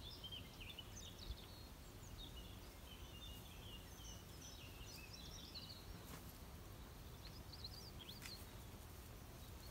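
Faint birdsong: small birds chirping and twittering in many short calls, busiest in the first half and again near the end, over a low steady rumble.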